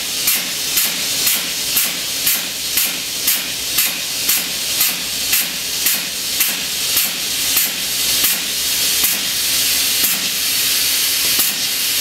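Vacuum hissing through the pulp press as excess sodium hydroxide lye is drawn out of the pressed alkali cellulose. The loud hiss pulses about twice a second, and after about eight seconds the pulses fade into a steady hiss.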